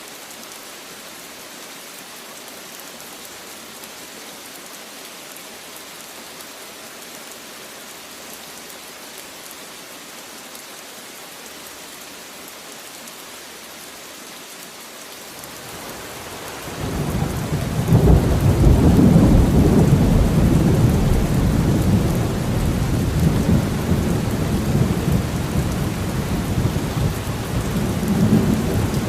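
Steady rain hiss; about halfway through, a long low rumble of thunder swells up over a couple of seconds and keeps rolling under the rain, much louder than the rain alone.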